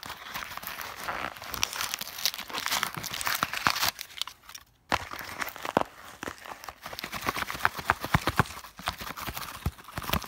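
Packing material in a cardboard box being rummaged through and pulled at: crinkling and crumpling of paper and plastic wrap with scattered sharp knocks, stopping for about a second around four seconds in.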